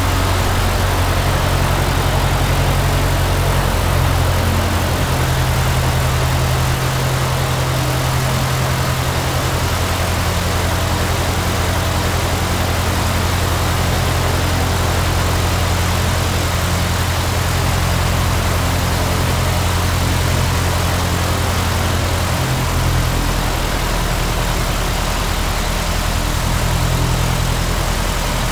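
Brand-new four-cylinder fuel-injected Continental IO-370 on a Cessna 172D running at low power with the propeller turning, warming its oil during the first run after installation. The steady low engine note shifts slightly a few times.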